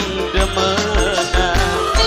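Dangdut music from the procession band, with a thudding drum-and-bass beat two to three times a second under a wavering melody line.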